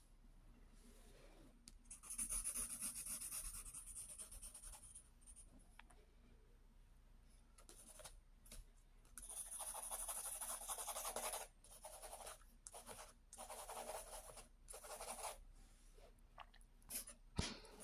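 Pencil shading on sketchbook paper: long stretches of scratchy back-and-forth strokes, broken by pauses, with short quick strokes near the end.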